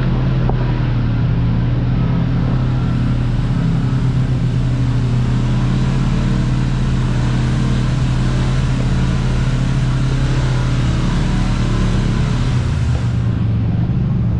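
Kawasaki Teryx KRX 1000 side-by-side's parallel-twin engine running steadily under way on a trail, with a steady hiss over the engine drone. The engine note eases slightly near the end.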